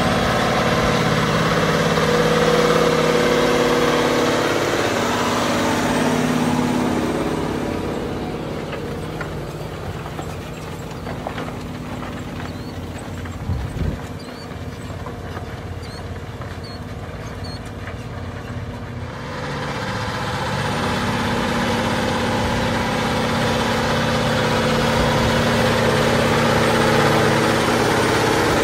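John Deere 9620RX track tractor's six-cylinder diesel engine running steadily under load while pulling a moldboard plow through sod. It is loud at first, drops to a quieter, more distant sound through the middle stretch as the plow bottoms pass, then comes back loud near the end.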